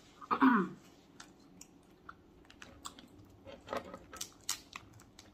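Steamed snow crab leg shells being cracked and pulled apart by hand, a run of small, sharp, irregular clicks and snaps. A brief vocal sound comes about half a second in.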